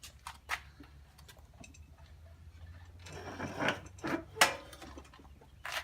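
Clicks and knocks from a handmade toy excavator being worked by hand, its levers and metal parts moving. The knocks are scattered, with a cluster in the second half and the sharpest one about four and a half seconds in, over a low steady hum.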